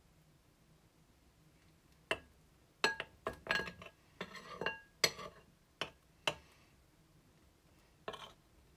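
Metal spoon clinking against a porcelain bowl while stirring a thick foamy mixture: a quick run of sharp, ringing clinks starting about two seconds in, then one more near the end.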